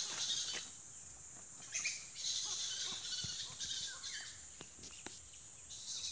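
A roosting colony of fruit bats (flying foxes) in a tree, calling: many short, scattered squeaks and chatter over a high hiss, from a colony stirred up by people close by.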